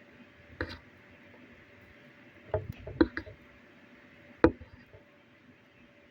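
Sharp clicks and knocks of a takeout food container being handled and opened. There is one click about half a second in, a quick cluster of clicks about halfway through, and a single louder knock a bit later.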